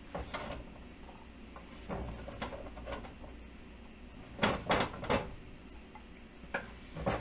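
Diced raw potato pieces being scraped by hand across a wooden cutting board and dropped onto a plate: scattered soft taps and clicks, with a louder cluster of three knocks about four and a half to five seconds in.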